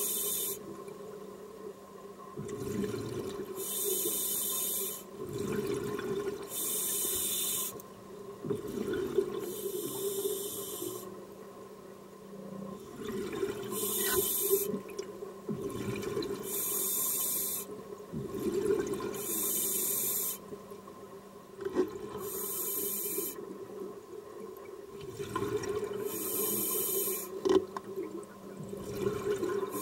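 Scuba diver breathing through a regulator underwater: a hiss of about a second on each inhale, roughly every three seconds, with bubbling exhalations in between.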